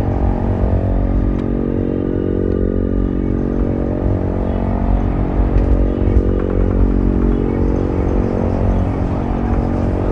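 Electric tram running along its rails, heard from inside the cab: a steady electrical hum over a low rumble of wheels on track, with a few light clicks.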